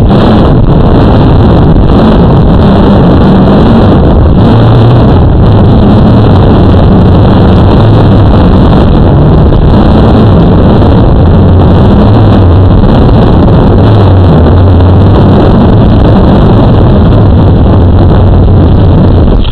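A radio-controlled model's motor running steadily, heard as a loud, distorted hum through the overloaded microphone of a small onboard camera.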